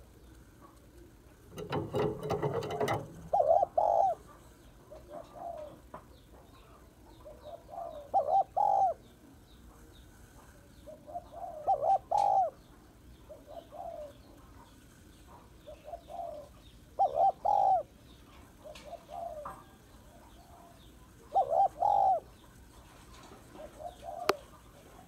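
Spotted dove cooing: a short phrase of low coos repeated every three to five seconds. A brief burst of noise comes about two seconds in, and faint small-bird chirps sound behind.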